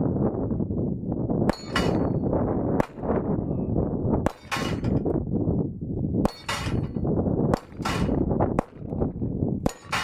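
Sig Sauer P220 .45 ACP pistol fired about eight times at uneven intervals of roughly a second, with steel bowling-pin targets ringing out with a clang as hits knock them off the rack. Steady wind buffets the microphone underneath.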